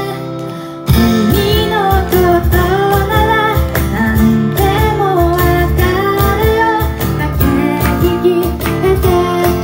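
Live pop song: a woman singing with strummed acoustic guitar and a second accompanist. After a brief softer moment the full accompaniment comes back in about a second in, and the singing and rhythm go on steadily.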